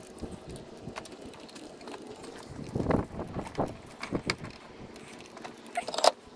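Irregular metallic clinks and knocks of a hand wrench and pipe extension being worked on a starter mounting bolt in a car's engine bay, with a sharper knock near the end.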